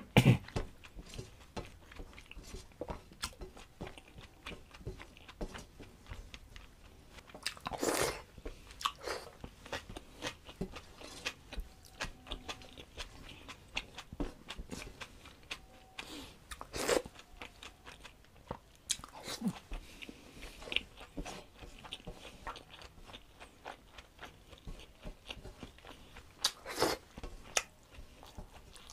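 Close-up eating sounds of a man chewing and biting food, with many small wet clicks and a few louder crunchy bites.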